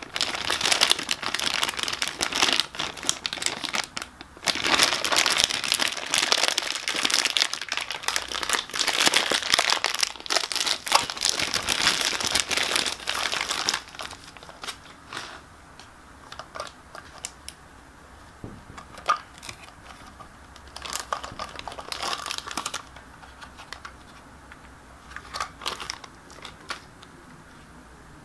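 Thin clear plastic packaging bag crinkling and tearing as it is pulled open by hand, loud and dense for about the first half. Then quieter handling of the hard plastic toy pieces, with a few light clicks and taps.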